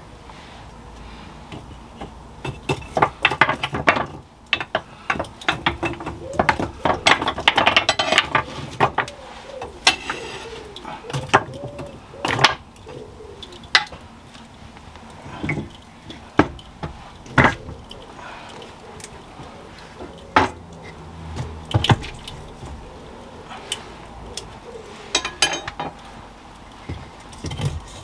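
Burning kindling stacks knocked over with a metal poker and logs put into a wood-fired pizza oven: clattering knocks of wood and metal on the oven floor. The clatter is busiest for several seconds early on, then comes as scattered single knocks.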